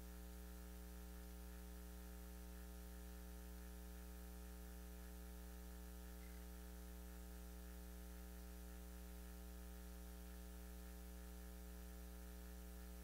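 Steady electrical mains hum with a row of overtones, low and unchanging; otherwise near silence.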